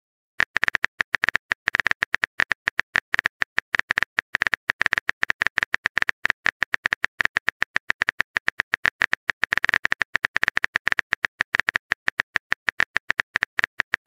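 Smartphone keyboard typing sound effect: a fast, uneven run of short clicks, several a second, starting about half a second in, as a text message is typed out letter by letter.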